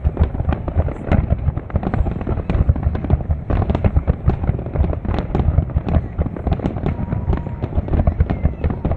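Fireworks display going off in rapid succession: a dense, continuous barrage of overlapping booms and sharp cracks.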